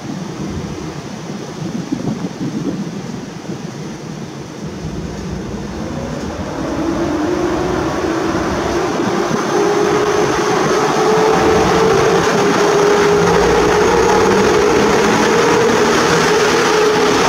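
EP07 electric locomotive starting away with a passenger train: a whine that rises slowly in pitch as it gathers speed, growing louder as the locomotive comes past close by.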